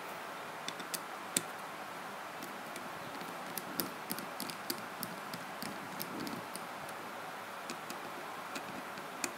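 Torx screwdriver working screws out of a Nokia N70 handset: irregular light ticks and clicks of the bit and small screws, over a steady hiss.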